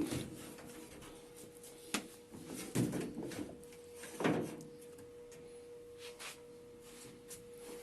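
A few separate clunks and scrapes of a washing machine's suspension damper rod being unhooked and pulled out by hand, with quieter handling noises between them.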